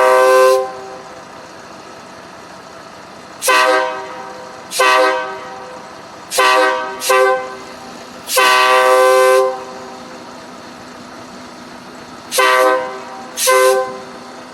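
Air train horn, fed from a semi truck's trailer air line, sounding in a series of short blasts, with one longer blast of about a second near the middle. A blast is just ending at the start, and seven more follow.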